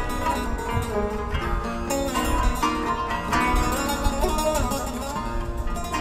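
Music with a plucked string instrument playing a melody.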